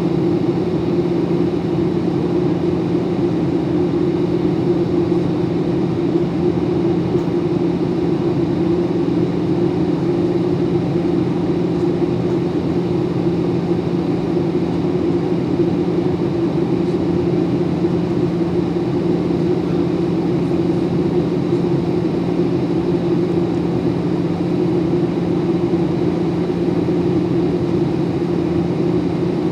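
Steady cabin noise inside a Boeing 737 in flight: a continuous low drone of engines and airflow, unchanging throughout.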